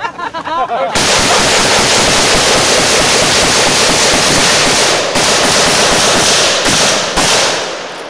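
Rapid automatic gunfire, nearly continuous for about six seconds, with a few short breaks near the end before it stops.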